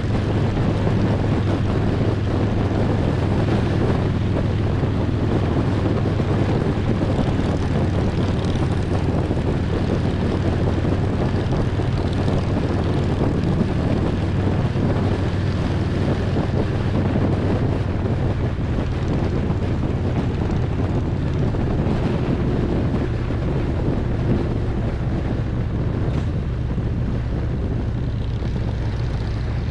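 Harley-Davidson Road Glide's V-twin engine running at a steady cruise, with wind rushing over the microphone. The sound eases slightly about halfway through.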